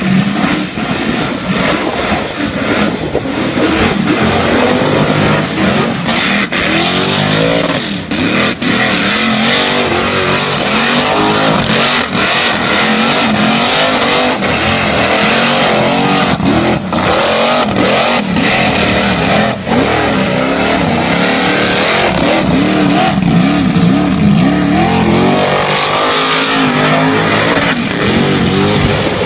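Car engine held at high revs through a long burnout, the revs rising and falling again and again, with the rear tyres spinning and squealing on concrete.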